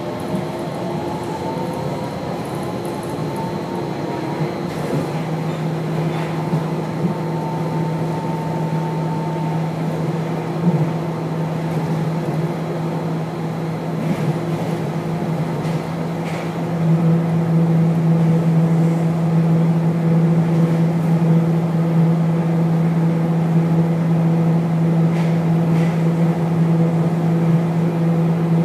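Running noise inside a rubber-tyred automated people-mover car on its guideway. A motor whine rises in pitch over the first few seconds as the car gathers speed, then settles into a steady hum, and the sound grows louder a little past halfway.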